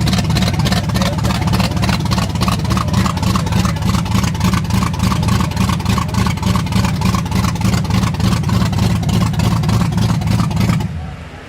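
Supercharged V8 engine of a Shelby Cobra replica running steadily, with a loud, fast-pulsing exhaust note; the sound falls away quickly near the end.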